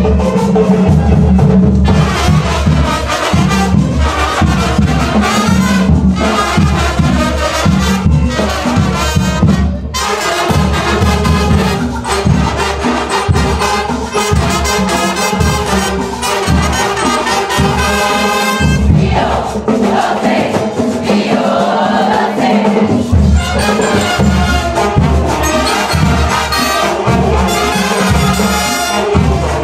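Marching band playing: brass instruments over a steady drum beat.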